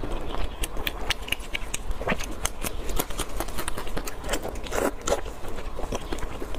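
Close-miked eating sounds: moist chewing and lip smacking, mixed with the crackle of cooked meat and fatty skin being torn apart by hands in plastic gloves. A quick, irregular run of small clicks and crackles, with a couple of louder wet squelches.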